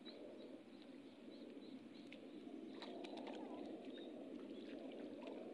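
Faint, steady wash of surf breaking on the reef, swelling slightly about halfway through, with a few small, faint chirps.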